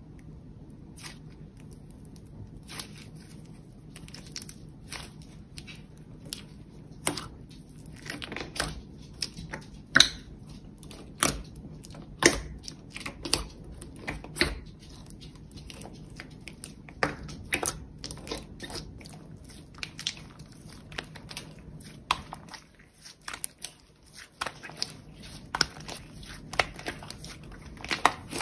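Thick slime squeezed, folded and pressed by hand, giving irregular sticky pops and crackles, some of them sharp.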